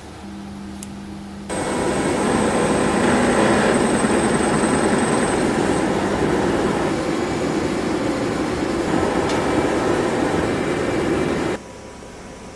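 Motor-driven workshop machine running steadily with a loud grinding noise, switching on about a second and a half in after a low hum and cutting off suddenly near the end.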